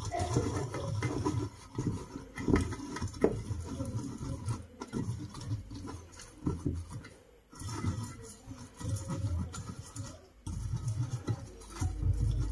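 Soft rubbing and light irregular knocks of a silicone oil brush being worked around the fluted cavities of a metal nonstick cupcake mold as it is greased, with a few brief pauses.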